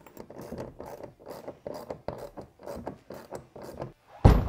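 Ratchet wrench clicking in quick short strokes as the serrated flange nut under a cargo box mounting bracket is tightened. A loud thud comes near the end.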